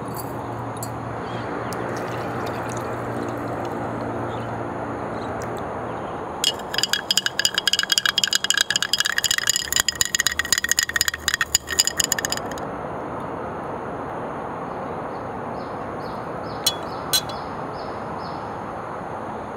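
A plastic straw stirred fast in a glass of milk, clinking and rattling against the glass for about six seconds, then two light taps near the end, over a steady hiss.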